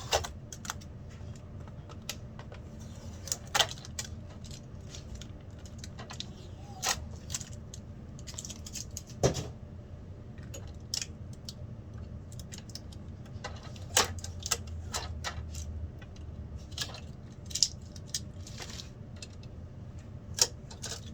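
Hands peeling packing tape off a new cutting machine and its packaging: crinkling, with irregular sharp clicks and taps, a few of them louder.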